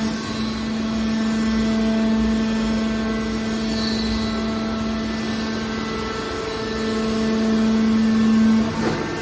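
Hydraulic scrap-metal baler running, its power unit giving a steady pitched hum. The hum grows a little louder late on, then breaks up into a few knocks at the very end.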